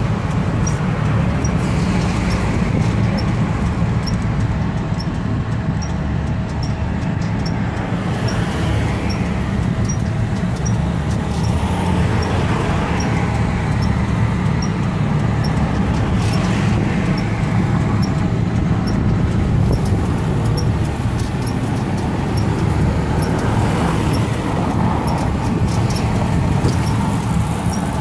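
Road traffic heard from a moving pedicab: a steady heavy low rumble of rolling and road noise, with cars swelling past every few seconds.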